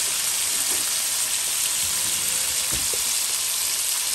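Seasoned beef short ribs sizzling steadily as they brown in hot oil in a pot over high heat.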